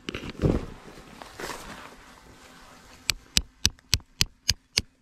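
Tent peg being hammered into the ground with a mallet: a quick run of sharp, even strikes, about four a second, starting about three seconds in. Before it, rustling and a thump.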